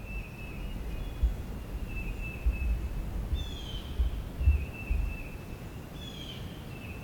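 Songbirds singing: a repeated high, level whistled note, and twice a quick falling trill. Irregular low rumbling bumps sit underneath.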